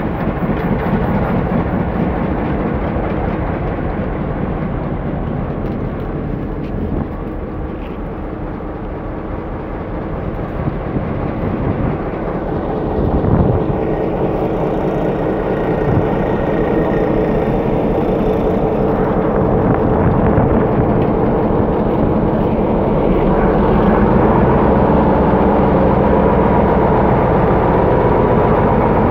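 Diesel locomotive engine running at close range, a steady drone that grows louder and fuller over the second half.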